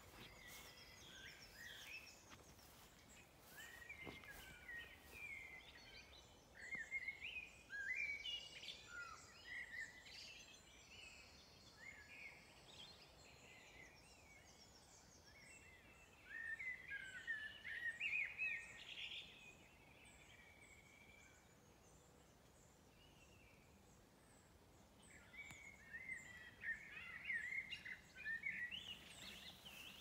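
Several songbirds singing in quick, warbling phrases that come and go in clusters, loudest around a quarter of the way in, around the middle and near the end. A thin high note repeats steadily through the middle.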